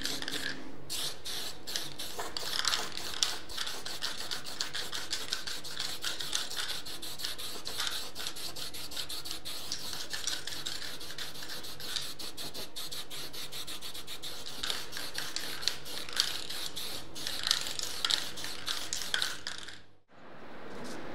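Aerosol spray-paint can hissing in quick, uneven spurts while coating sheet metal, fading out near the end.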